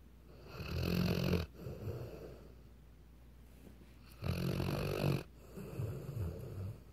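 A Weimaraner dog snoring: two snoring breaths about three and a half seconds apart, each a loud snore lasting about a second followed by a softer one.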